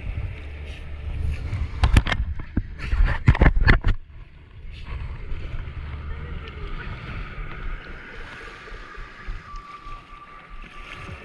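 Motorboat running on the sea, with wind on the microphone and a cluster of loud thumps about two to four seconds in. After that it settles to quieter water and wind noise.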